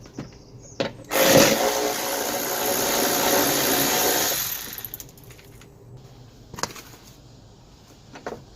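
Power tool running for about three and a half seconds, starting about a second in, undoing a window regulator nut inside a car door, followed by a few light clicks.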